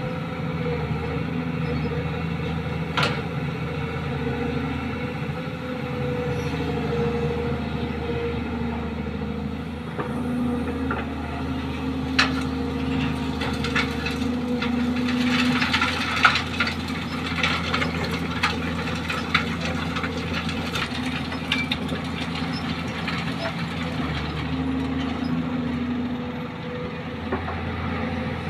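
Kobelco hydraulic excavator's diesel engine running steadily under working load as it digs and swings, its note shifting a little. There are two sharp knocks in the first half. Around the middle comes a few seconds of dense rattling as a bucketful of sand is dumped into the dump truck's bed.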